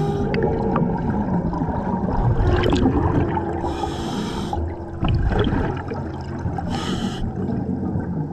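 Scuba divers breathing on their regulators underwater: a few hissing inhalations, with exhaled air bubbling and gurgling between them.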